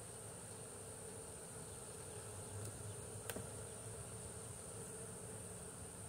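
Honeybees buzzing in a faint, steady hum around an opened swarm-trap colony as its frames are handled, with a constant high-pitched whine in the background. One sharp click sounds about halfway through.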